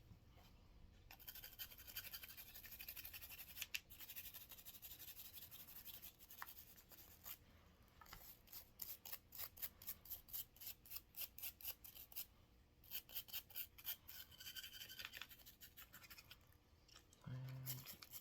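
Faint, rapid back-and-forth scrubbing of a cleaning brush on a revolver's steel barrel and frame, in quick runs of strokes with short pauses.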